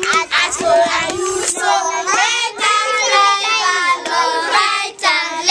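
Young children singing together, with long held notes.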